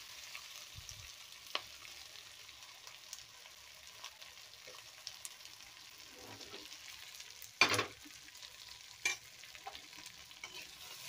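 Sautéed vegetables and toor dal sizzling faintly in a hot kadai, with a few sharp clinks of metal, the loudest about two-thirds of the way through.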